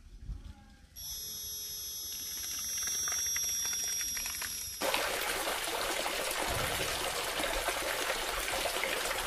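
Small 1400kV brushless motor driving a homemade impeller water pump, starting about a second in with a steady high whine over the hiss of the water it pumps. About halfway through the whine gives way to a steady splashing of water pouring from a plastic hose into a shallow pit.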